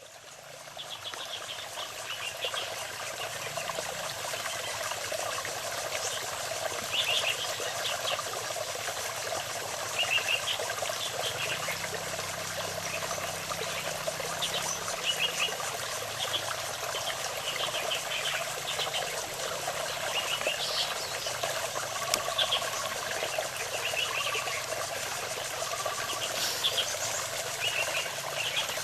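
A steady, dense chorus of calling frogs, with small songbirds' short chirps and calls scattered over it and a few brief whistled notes in the second half.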